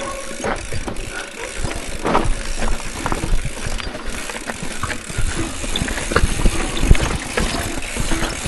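Bicycle rattling and clattering over a rocky trail: a dense, irregular run of knocks and rattles from the frame and parts jolting on the stones.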